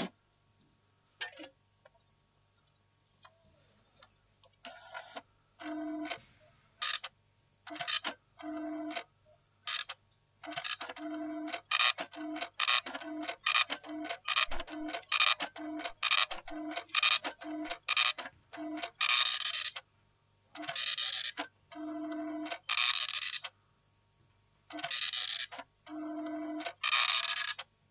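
An electronic soundtrack of clicking, ticking bursts, each a short low tone with a hiss on top, cut apart by dead silence. It starts sparse, settles into about two clicks a second midway, then turns into longer hissing bursts near the end.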